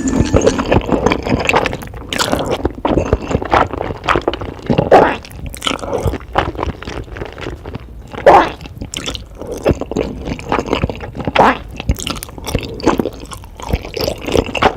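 Close-miked eating sounds: wet, squishy chewing and biting with crunches and mouth clicks. Two louder wet sounds come about 5 and 8 seconds in.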